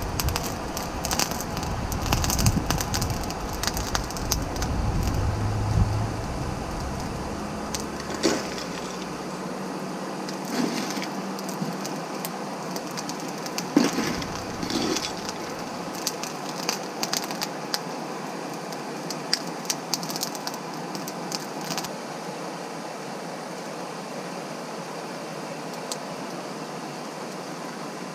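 Coal forge fire burning under a forced-air blast, a steady rush of air with scattered crackles and pops from the coals.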